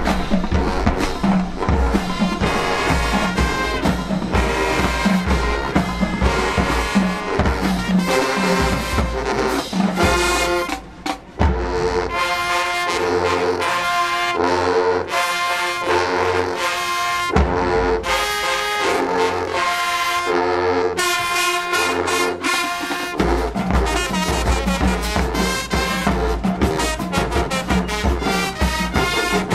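High school marching band playing, brass led by trombones over a drumline. About eleven seconds in the drums drop out and the brass plays short, repeated chords; the full band with drums comes back in near the end.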